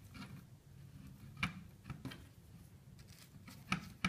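Hands twisting two red electrical wire ends together, faint rustling with a few small sharp clicks, the clearest about a second and a half in and a cluster near the end.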